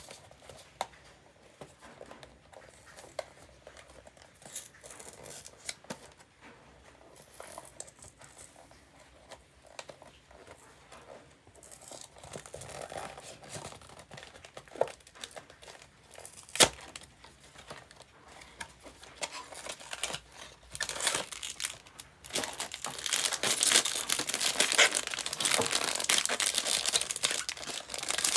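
Small cardboard blind box handled and opened, with scattered light taps and clicks and one sharp click about two-thirds of the way through. Then a foil wrapper bag crinkles and tears loudly as it is ripped open near the end.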